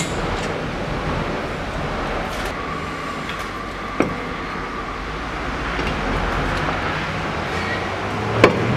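Steady traffic-like background noise, with two sharp metallic clicks, one about four seconds in and one near the end, as the front brake caliper is unbolted and handled.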